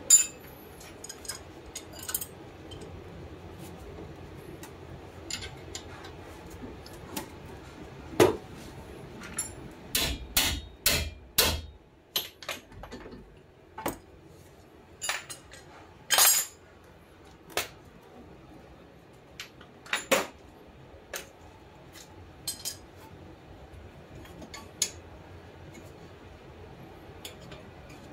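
Scattered metal clinks and knocks as brake pads, caliper and tools are handled and fitted at a car's front disc brake, with a quick run of five or six knocks about ten seconds in.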